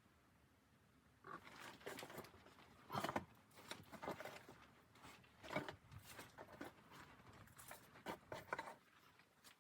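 Quiet, irregular rustling with scattered short knocks and clicks, starting about a second in: the sound of someone moving about and handling things.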